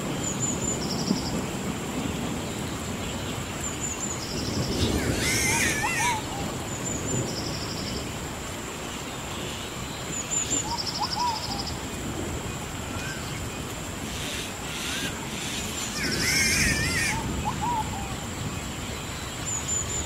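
Storm and forest ambience: a steady low rumbling background with a bird's warbling call twice, about eleven seconds apart. Short high chirps repeat every three seconds or so throughout.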